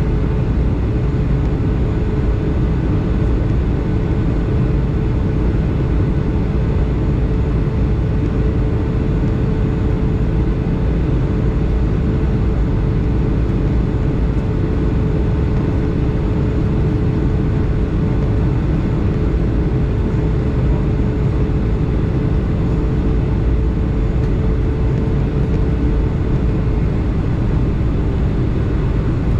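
Boeing 757 cabin noise during the descent on approach: a steady rush of airflow and engine drone with a constant hum that drops slightly in pitch near the end.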